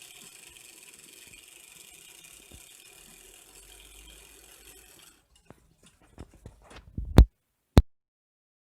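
Märklin 3000 model locomotive's small electric motor and gear train running with a faint steady whir, cutting off about five seconds in. A few small clicks follow, then two sharp loud clicks about half a second apart near the end.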